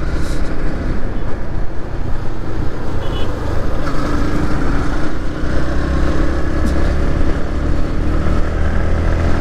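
Yamaha MT15 motorcycle running steadily on the move, its single-cylinder engine holding an even note under continuous road noise.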